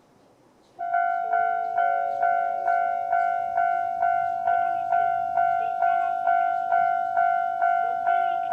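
Japanese railway level-crossing alarm starting up about a second in: an electronic bell sounding about twice a second in the crossing's standard tone, each strike ringing and fading before the next.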